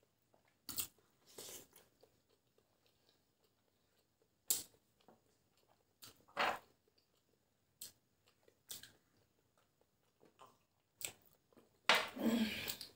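Two people eating curry-coated boiled eggs: soft, scattered chewing and mouth smacks every second or so, with a longer, louder burst near the end.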